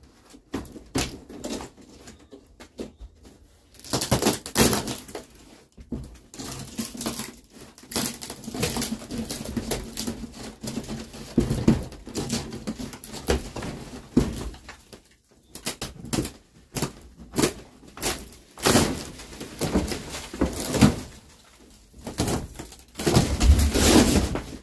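A sawn plywood ceiling panel being pulled down by hand: irregular cracking, creaking and scraping of wood with debris falling, and a heavier crash near the end as the panel comes down.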